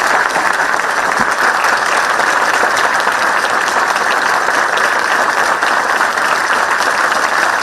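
Large audience applauding steadily, a dense sustained clapping that follows the end of a speech.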